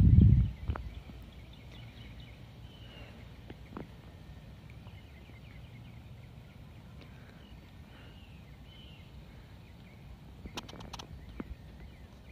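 A few heavy low thuds right at the start, then a quiet outdoor background with faint bird chirps, and a few sharp clicks near the end.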